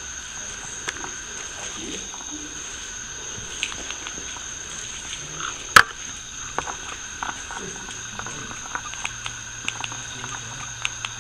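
Scattered light clicks and crunches of footsteps over a debris-strewn floor, with one sharp knock about six seconds in, over a steady high-pitched whine.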